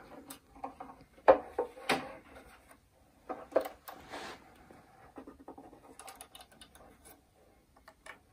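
Wooden tuning pegs of a baroque violin turned a little at a time to slacken the strings: scattered wooden clicks, creaks and rubs of the pegs and the handled instrument. The sharpest clicks come in the first two seconds and a few faint ticks come near the end.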